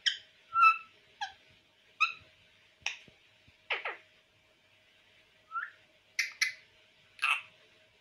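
Male rose-ringed parakeet (Indian ringneck) giving about ten short, shrill calls, with a longer falling call just before the middle and a brief pause after it.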